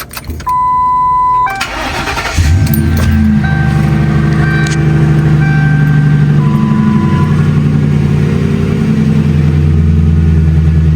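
A Ford Crown Victoria's 4.6-litre V8 is cranked briefly and catches about two seconds in, then idles steadily. Just before the cranking, a steady electronic tone sounds for about a second.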